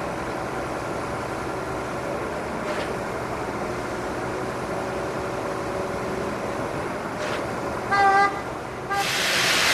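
Heavy diesel engine running steadily, as from the truck-mounted concrete pump working its boom. A short horn toot sounds about eight seconds in and a brief second one about a second later, and a loud hiss-like rush starts near the end.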